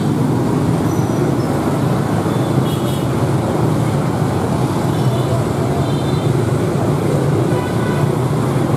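Steady traffic noise from a busy road, mostly motorbike engines passing in a continuous stream.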